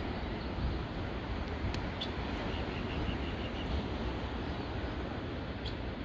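Wind rumbling on the microphone, with a faint bird call about two and a half seconds in: a quick run of about seven short, even notes.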